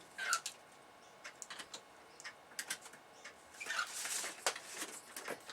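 Computer keyboard typing in light, irregular clicks, with a short cockatiel call falling in pitch just after the start and a longer, scratchier sound about four seconds in.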